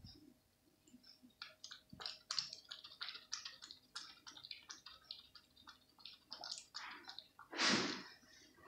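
A cat lapping milk from a plastic plate: quick, wet licking clicks, about three or four a second, with one louder short whoosh near the end.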